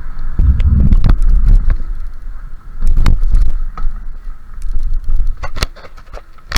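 Riding a bicycle: gusts of wind rumbling on the microphone, with sharp knocks and rattles from the bike throughout.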